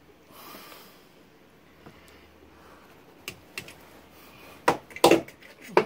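Scattered light clicks of handling, then a few sharper knocks near the end: hands moving among the hoses and fittings of a stopped engine, or the phone being handled close to its microphone.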